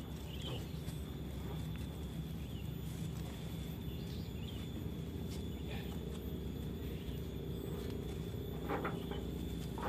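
Faint rustles of a rope being tied around a hand tractor's mud-caked iron wheel, a few times, over a steady low hum and a thin high steady tone.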